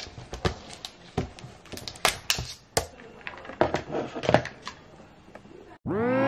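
Irregular clicks and knocks of a laptop and a plastic iced-coffee cup being handled and set down on a hard lap desk. About five and a half seconds in, the sound cuts off and piano music begins.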